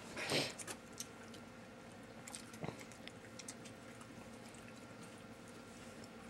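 Faint clicks and clinks of a group eating by hand from plates, with a short hissing burst about a third of a second in.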